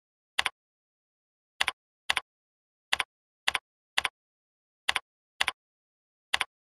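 Computer keyboard being typed on slowly: about nine separate keystrokes, each a quick double click, with silence between them.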